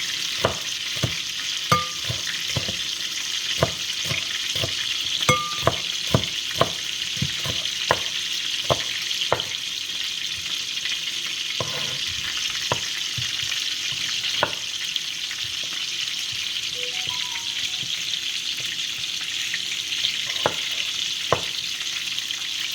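Food sizzling steadily in hot oil in a cooking pot, with a spoon tapping and scraping against the pot many times, most often in the first half.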